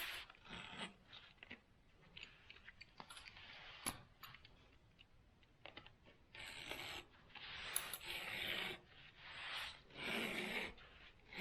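Utility knife scraping and slicing through excess fiberglass window screen mesh along the frame, in repeated short strokes, with a few small clicks in the first half.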